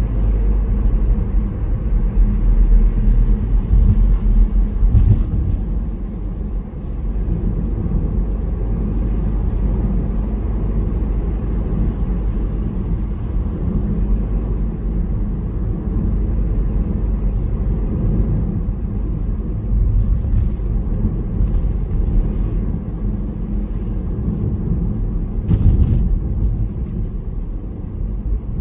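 Car driving: a steady low rumble of engine and road noise, with a brief knock about five seconds in and another near the end.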